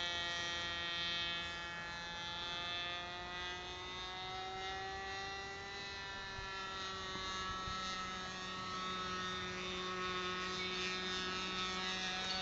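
Model airplane's engine droning overhead at a steady pitch that drifts slightly up and then back down as it flies.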